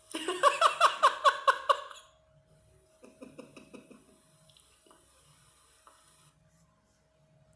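A woman laughing: a high-pitched giggle of about nine quick pulses, then, about a second later, a softer, lower burst of laughter.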